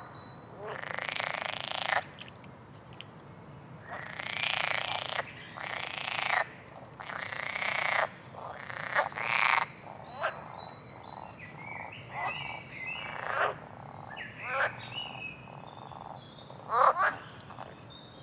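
Frogs croaking: a run of raspy, rattling calls of up to about a second each, coming every second or two and growing shorter in the second half. Short, thin bird chirps and whistles sound between them.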